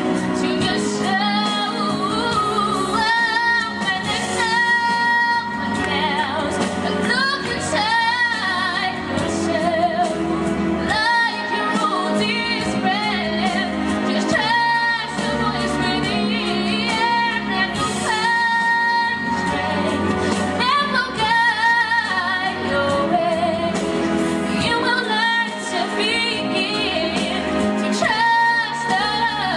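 A woman singing a song into a handheld microphone over instrumental backing music, her long held notes wavering with vibrato.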